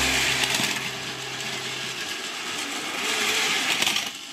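Battery-powered Plarail toy shinkansen trains, an N700A and an N700 Mizuho/Sakura, whirring along plastic track with their small motors and gears running. The noise drops away about four seconds in as the trains are stopped.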